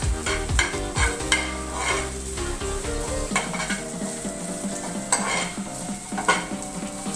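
Julienned carrots sizzling in hot oil in a frying pan over a high gas flame, with a spoon stirring and scraping through them in repeated strokes, most often in the first half.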